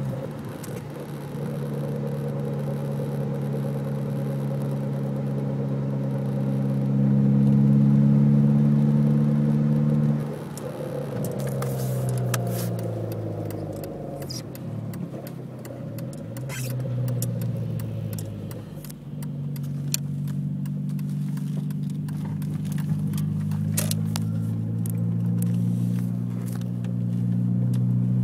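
2003 VW GTI's 1.8-litre turbocharged four-cylinder engine running at a steady pitch. About ten seconds in, the pitch falls away. It climbs again over the last third. Scattered light clicks and crackles come through from about eleven seconds on.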